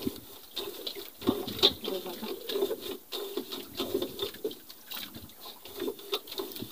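Water lapping and slapping against the hull and bamboo outrigger of a wooden outrigger boat with its engine off, in irregular small slaps.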